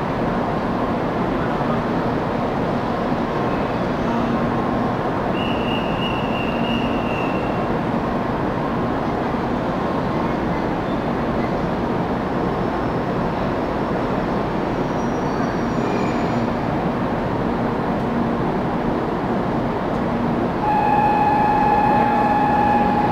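Steady background noise of a busy shinkansen station platform, with no train yet at the track. About three seconds before the end, a steady high tone begins and holds.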